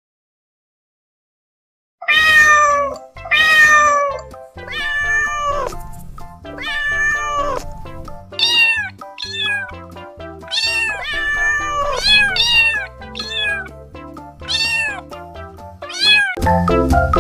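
Domestic cat meowing again and again, about a dozen short meows that each rise and fall in pitch, starting after two seconds of silence, over background music.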